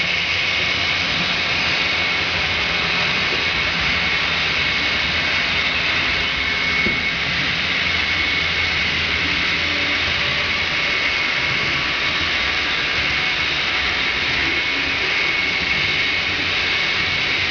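Model freight train of double-stack container well cars rolling along the layout track, a steady whirring rumble of small wheels on rail with a constant high whine over it.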